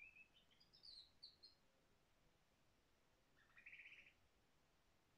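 Pet canary singing softly: a run of short rising chirps over the first second and a half, then a quick buzzing trill about three and a half seconds in.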